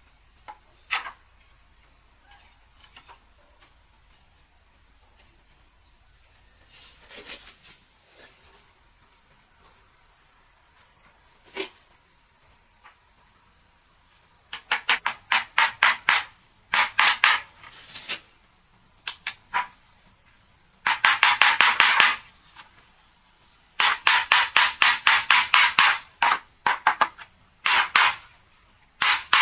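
Hammer blows on wood in quick runs of several strikes, about four or five a second, starting about halfway through. A steady high insect drone sounds underneath.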